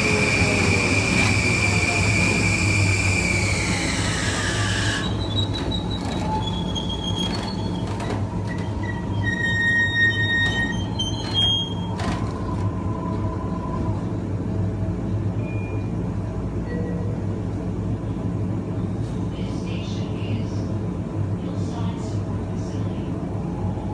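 Kawasaki M9 EMU's Mitsubishi IGBT-VVVF inverter and AC traction motors: a steady high inverter whine over falling motor tones as the train slows, cutting off sharply about five seconds in. A few brief stepped tones follow, then a steady low hum from the train.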